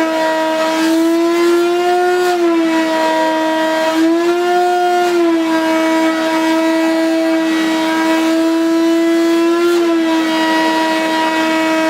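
Shop vacuum running with a steady motor whine, rising slightly in pitch a few times.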